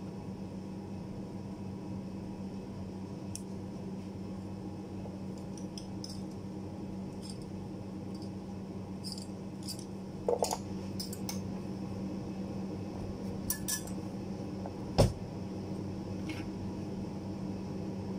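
Small metal clicks and clinks from handling bent steel-rule die blades and fitting them into a plywood die board. There are a few sharper knocks a little past halfway and one loud knock later on, over a steady low hum.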